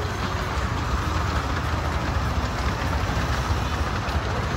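Little Puffer miniature steam train giving off a steady low mechanical rumble.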